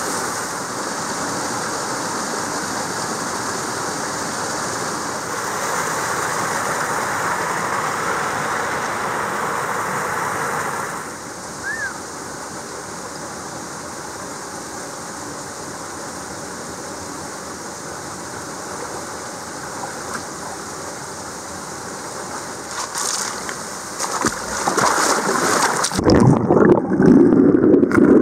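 Mountain creek water rushing over boulders, a steady hiss of running water that drops in level about eleven seconds in. Near the end come splashes, then the sound turns muffled and low, churning water heard with the microphone under the surface.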